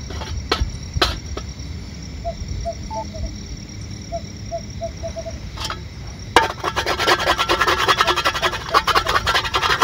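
Utensil scraping and rasping fast against a cooking pan where food has stuck and burnt. It starts loud and sudden about six seconds in, after a few light knocks.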